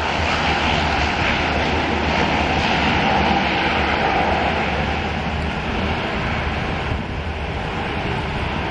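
Twin engines of a Canadair firefighting water bomber running steadily as it flies low past and away, the sound easing a little from about five seconds in.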